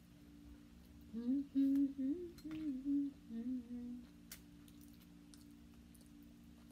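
A woman hums a short, stepping tune with her mouth closed while eating, starting about a second in and lasting some three seconds. There are a few small sharp clicks as crab shell is handled, over a steady low hum.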